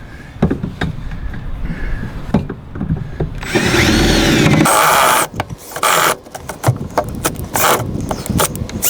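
Power drill boring into the car's underbody metal for the subframe connector bolts. It runs in one long burst about three and a half seconds in, then in several short bursts with gaps between them.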